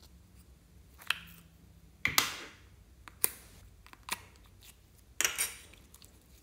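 Handling a small plastic slime capsule as yellow slime is squeezed out of it: about five short, sharp snaps and pops roughly a second apart, the loudest about two seconds in.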